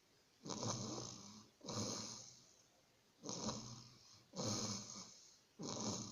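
A person snoring: five rough, rasping snores in quick succession, about one every second and a half.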